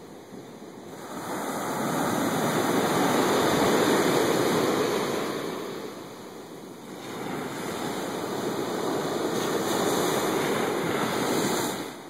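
Ocean surf breaking and washing up a sandy beach in two long swells: the first builds about a second in and fades around six seconds, and the second rises again and drops off sharply near the end.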